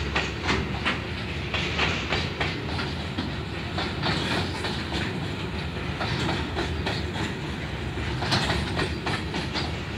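Loaded ZBKH coal hopper wagons rolling past, their wheels clacking over the rail joints in a repeated clickety-clack over a steady rumble.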